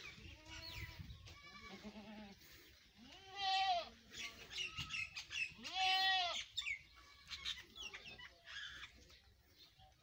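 Goats bleating: a shorter, wavering bleat early, then two loud, long bleats about three and a half and six seconds in. Birds chirp in the background.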